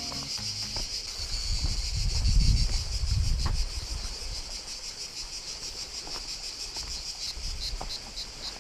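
Cicadas buzzing steadily and shrilly in the pines, the buzz turning into a rapid pulsing in the second half. Wind rumbles on the microphone for a second or so early on.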